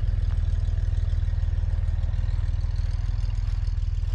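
1962 Chevrolet Greenbrier van's air-cooled Corvair flat-six engine idling with a steady, even pulse.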